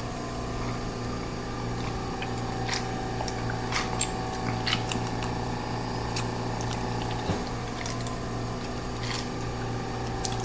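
Soda being sipped and swallowed, with small scattered clicks, over a steady background hum.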